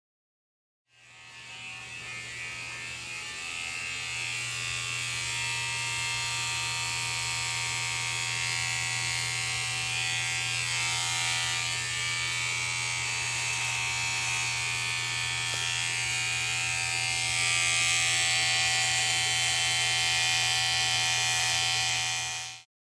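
Electric hair clippers running with a steady buzzing hum. The sound starts about a second in, grows louder over the next few seconds, and stops abruptly near the end.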